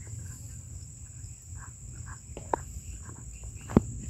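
Steady high-pitched drone of insects, over a low rumble, with a couple of short sharp clicks, the louder one near the end.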